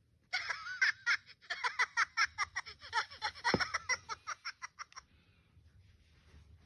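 A person's voice in a quick run of short, high-pitched nonsense syllables, ending about five seconds in.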